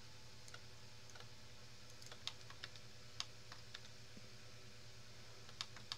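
Sparse, faint, irregular clicks from a computer keyboard and mouse being used, over a steady low hum.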